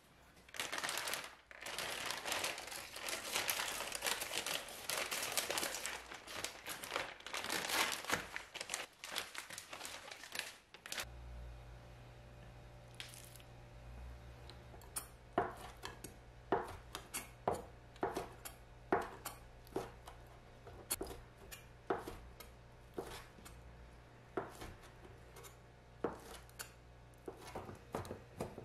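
Plastic packaging crinkling and tearing as bacon is unwrapped. About eleven seconds in it stops, a faint low hum sets in, and a knife chops bacon on a wooden cutting board in slow, sharp strokes, one or two a second.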